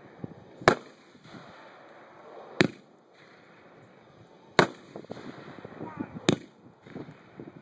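Consumer firework cake firing aerial shots: four sharp bangs about two seconds apart as the shells burst, with smaller crackling pops after the later bangs.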